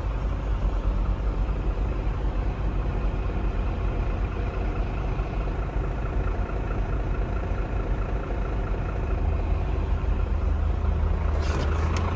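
Iveco Stralis AD260S45 truck's six-cylinder diesel engine idling steadily, heard from inside the cab.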